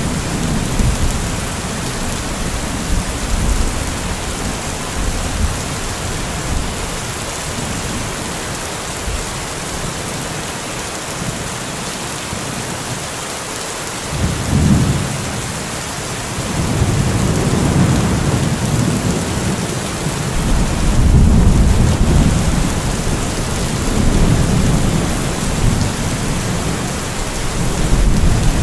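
Steady heavy rain falling, with rolling thunder. The rumbling dies down about halfway through, returns with a short burst, and swells again in the later part.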